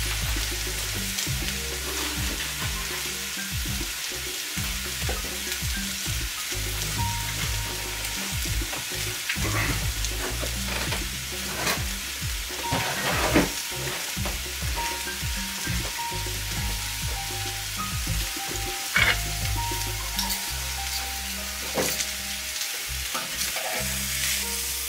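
Bone-in ribeye sizzling steadily in a hot cast-iron grill pan, with scattered crackles and a few sharp pops of spitting fat. This is the final sear after the steak's sous vide cook.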